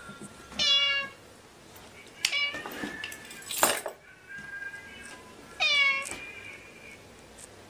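A cat meowing twice, two short calls about five seconds apart, with a brief rustling crackle in between.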